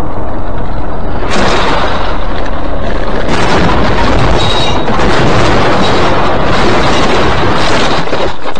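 Loud, distorted noise of a vehicle on the move, picked up by a dashcam microphone, with heavier surges about a second in, about three seconds in and near the end.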